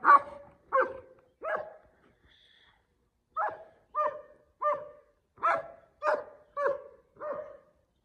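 German Shepherd dog barking repeatedly: three barks, a pause of about two seconds, then a run of seven barks at a steady pace.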